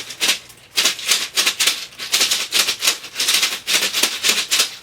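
A small plastic bag full of plastic lids shaken as a homemade shaker, giving a maraca-like rattle in quick repeated strokes, about four a second, with a short break near the start.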